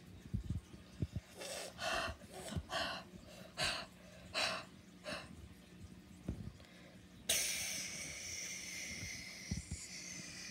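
A person's short breathy puffs through the nose and mouth, about two a second, with light knocks of small toy figures set down on a wooden tabletop. About seven seconds in, a sudden loud hissing squeal starts and holds for about three seconds.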